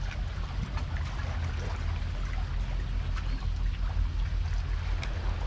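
Sea water sloshing and trickling, over a steady low rumble.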